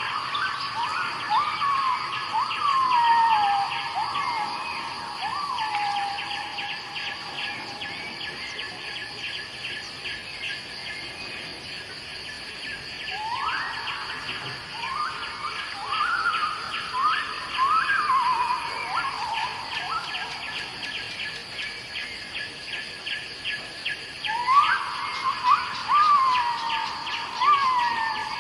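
Three bouts of bird calls, each a quick run of notes that rise sharply and then slide down, over a steady, rapidly pulsing chorus of insects.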